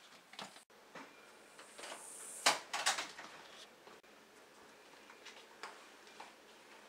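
A house's front doors being opened and pushed shut. There is a small latch click, a brief swish, then two sharp knocks about two and a half to three seconds in, followed by a few faint taps of footsteps.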